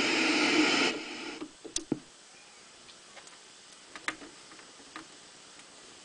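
Bush TR82 transistor radio giving out a steady hiss from its speaker that dies away about a second in as the set is switched off. Then come two sharp clicks from its controls and a few faint ticks.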